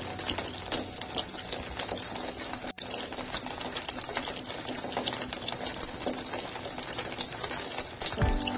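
Liquid running steadily through the hose of a miniature DIY fuel pump into a toy tractor's tank, a gushing hiss with small ticks. The sound drops out for an instant about a third of the way in.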